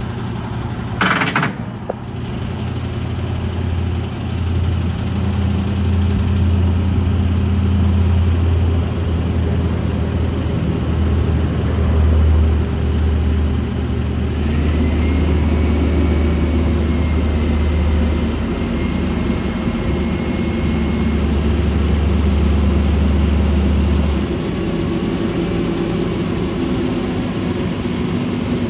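Diesel engine of a digger-derrick truck running while the hydraulics work the boom, its low hum swelling a few seconds in and dropping back near the end. A sharp clank comes about a second in, and a faint high whine runs through the middle.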